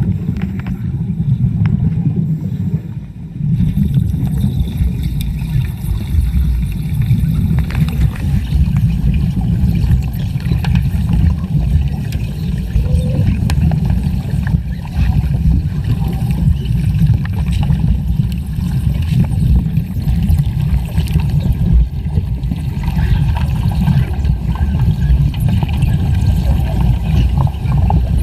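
Underwater cutting torch burning through steel, heard through the water: a continuous, dense, low rumble of gas bubbles full of crackle, which grows fuller about three and a half seconds in.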